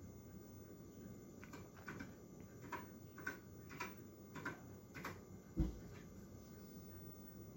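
A series of light, separate clicks, about eight over some four seconds, followed by a single dull thump.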